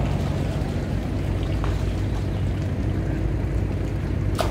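Engine running steadily with a low, even hum, and a sharp click near the end.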